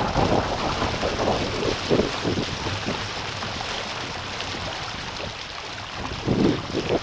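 Water rushing and splashing along the hulls of a Hobie Tandem Island sailing trimaran under way at about 14 km/h, with wind buffeting the microphone. The rush eases through the middle and surges again about six seconds in.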